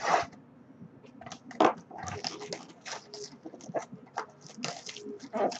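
Trading-card pack being torn open: irregular crinkling and crackling of the wrapper, then cards being handled. Two louder crackles come near the start and about a second and a half in.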